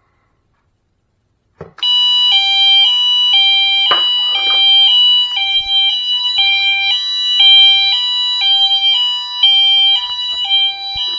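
Fire alarm system going into alarm after a System Sensor 2151 smoke detector is tripped with a test magnet: a click, then notification appliances sound a loud high-low alternating tone from a Wheelock MT24 set to high-low. The tone switches about twice a second over a steady shrill tone and cuts off suddenly near the end.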